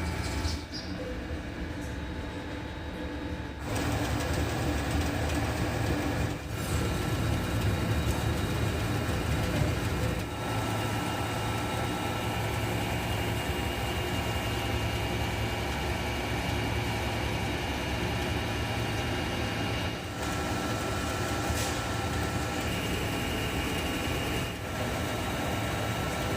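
Pipe-making factory machinery running steadily, a low hum with a faint high whine, the sound shifting abruptly several times as the shots change.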